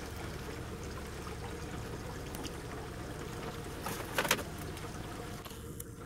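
Steady low hum and water noise from a river boat, with a brief knocking clatter about four seconds in.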